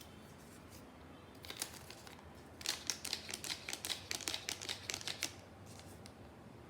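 Paper being handled: a run of quick, irregular crinkling crackles from about a second and a half in until about five seconds in.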